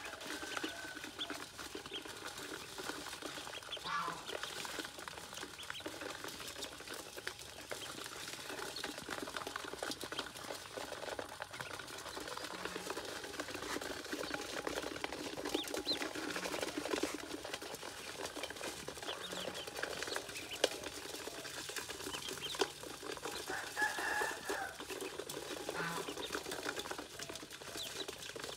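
A crowd of ducklings peeping, over a constant scuffling and scrabbling of their feet and wings against a metal basin.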